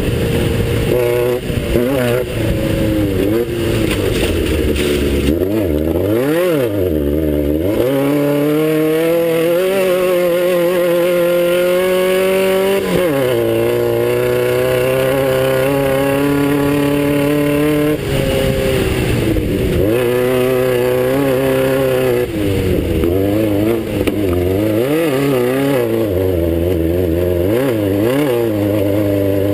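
A Class 9 desert race buggy's engine pulling hard through a race lap, the revs climbing and dropping again and again. The deepest drop and recovery comes about seven seconds in. Constant rattle and road noise run underneath.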